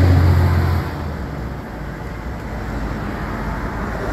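Steady low background rumble, with a deeper hum that cuts off about a second in.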